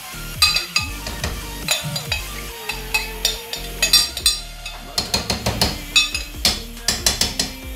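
A spoon stirring shredded meat in an aluminium pot, clinking and scraping against the pot many times in quick, irregular strokes, each clink ringing briefly.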